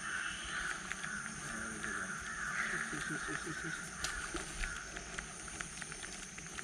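Crows cawing harshly and repeatedly, the calls dying away about five seconds in, over a steady high-pitched drone and scattered faint ticks.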